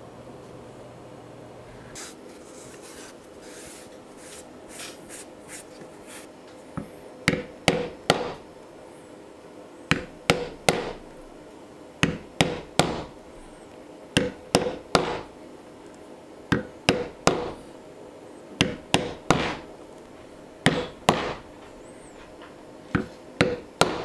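Mallet striking a metal leather stamping tool into leather laid on a stone slab, tooling a border pattern. After a few faint scrapes, sharp taps come in quick groups of about three, a group every two seconds or so.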